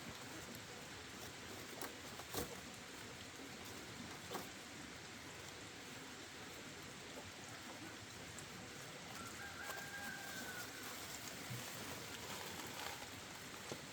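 A rooster crows once, a held call of about a second starting about nine seconds in, over a steady hiss with a few sharp knocks.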